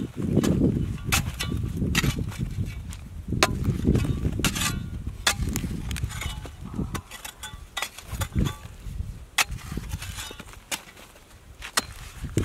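Metal spade chopping and scraping into dry, cracked mud, with clods of hard earth knocking and breaking apart in irregular sharp knocks over a low rumble.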